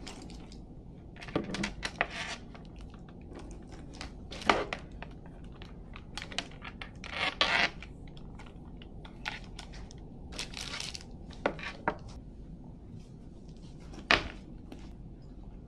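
Things being handled and packed into a handbag on a desk: scattered light clicks, small knocks and short rustles, with a sharper knock about a second in from the end.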